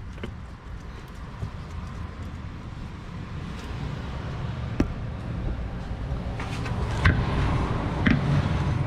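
A few sharp clicks and knocks as a new oil filter is screwed on by hand, over a low rumble that grows louder in the second half.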